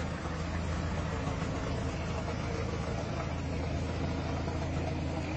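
An engine idling: a steady low hum that holds level throughout, with no distinct events over it.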